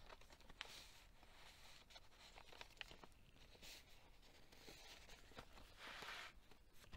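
Faint rustling and soft clicks of thick handmade journal pages and tucked papers being handled and turned, with a slightly louder page flip about six seconds in.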